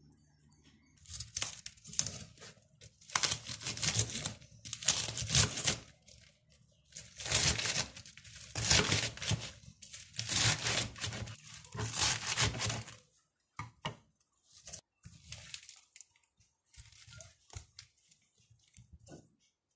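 Crisp lettuce leaves torn apart by hand in a run of loud ripping bursts, then softer scattered rustles and taps from about thirteen seconds in as the pieces are moved.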